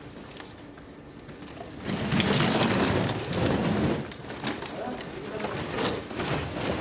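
Large woven plastic sacks of scrap rustling and crackling as they are dragged and heaved up onto a truck, with dull knocks. The noise starts about two seconds in and is loud and uneven.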